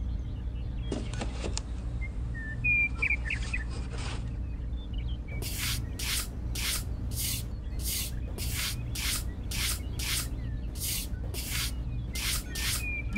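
Small metal hand trowel scraping and pushing sand against the edge of a plastic pond shell, in short even strokes about two a second, starting about five seconds in. Before that, a few light knocks as the plastic pond shell is pressed down into its hole in the sand.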